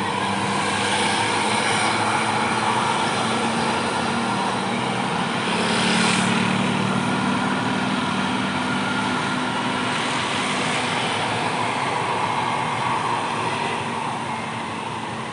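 A bus passing by, its engine running and its tyres hissing. The sound swells to loudest about six seconds in and fades near the end.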